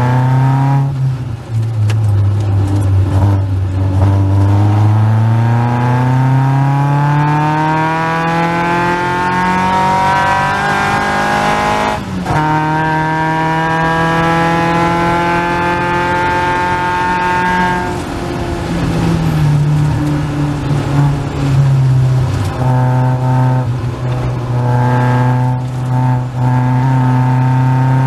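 Caterham Seven race car's 2.3-litre Ford Duratec four-cylinder engine under hard racing use. It revs up in a long climb, breaks sharply about twelve seconds in as it changes gear, pulls on, then drops off near eighteen seconds as the driver lifts, before running steadily again.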